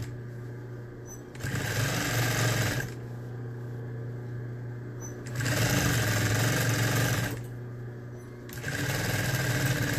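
Industrial sewing machine stitching through a thick terry-towel hem in three short runs of a second or two each, with a steady low hum between the runs.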